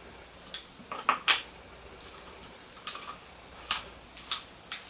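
Scattered sharp clicks and clinks of a garden hose spray nozzle being handled and fitted onto the hose's end fitting, hard parts knocking together about eight times at irregular intervals.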